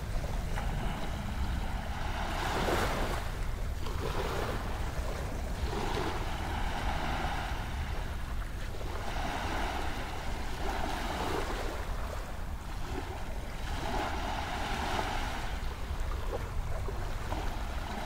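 Small waves washing up onto a sandy shore, a swell of surf noise every couple of seconds, with wind rumbling on the microphone.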